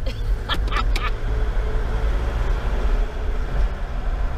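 Steady low rumble of a four-wheel drive's engine with tyre hiss on a wet road, driving slowly and heard from inside the cabin. A few short clicks come in the first second.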